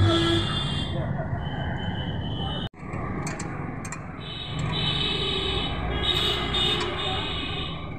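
Steady workshop and street background noise, with a few light metallic clicks from a socket wrench as the clutch pressure-plate bolts are tightened. The sound cuts out for an instant about three seconds in.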